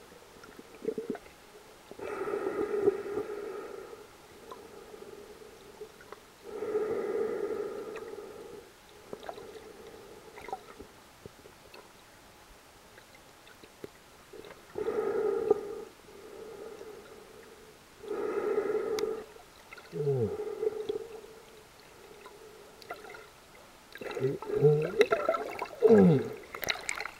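A snorkeler breathing through a snorkel tube, heard from under the water: four slow, hollow breaths a few seconds apart, then gurgling water and bubbles in the last few seconds.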